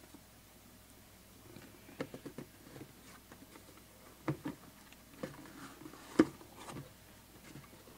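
Cardboard shipping box being opened by hand: scattered light scrapes, taps and rustles of cardboard, with one sharper knock about six seconds in.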